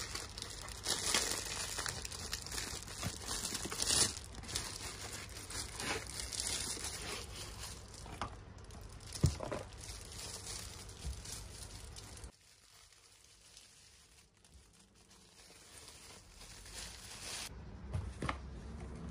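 Clear plastic bag crinkling and rustling as a small blender is pulled from it and unwrapped, with one sharp knock about nine seconds in. The crinkling stops about two-thirds through, leaving a quiet stretch, and light handling noise returns near the end.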